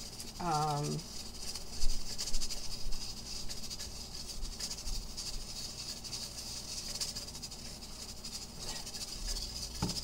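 Stainless stovetop pressure cooker under pressure, its weighted valve letting out a steady high hiss of steam. A short hum from the cook comes about half a second in, and a few sharp clicks about two seconds in.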